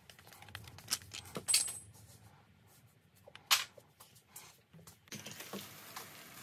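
A few sharp metallic clicks and clinks from handling a click-type torque wrench, one with a short metallic ring. About five seconds in, a steady hiss starts.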